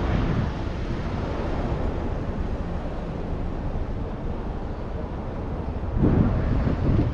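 Wind buffeting the microphone over the low rumble of passing street traffic, growing louder about six seconds in.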